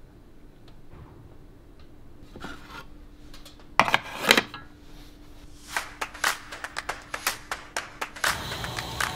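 Aluminium mess tin (BUNDOK two-go hangō) clattering as its inner tray of frozen vegetables is set into it: two loud metal knocks about four seconds in, then a run of light, sharp metallic clicks and clinks.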